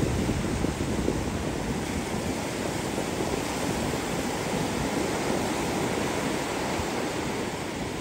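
Ocean surf: waves breaking and washing up the beach in a steady rush, with wind rumbling on the microphone.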